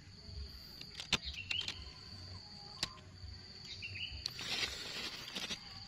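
Steady high-pitched drone of insects such as crickets, with a couple of short bird-like chirps and a few sharp clicks, the loudest about a second in.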